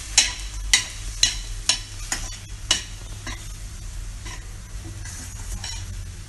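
Spatula stirring sautéing vegetables in a stainless steel pan, scraping and clinking against the metal about twice a second for the first three seconds and more softly after, over a steady sizzle.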